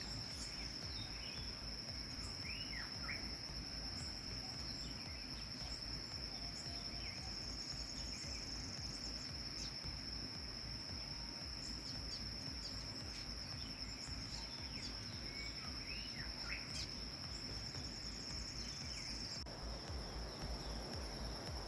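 Insects, cricket-like, buzzing in one steady high-pitched drone, with scattered short bird chirps.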